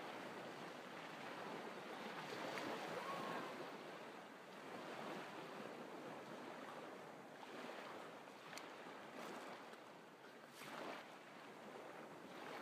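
Small waves breaking and washing up on a sand-and-pebble beach, a faint surf wash that swells and ebbs every few seconds.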